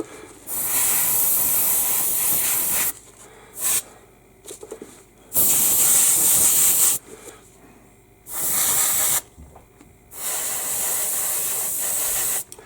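Airbrush spraying paint in four long hissing bursts, each one to two and a half seconds, with a brief puff between the first two.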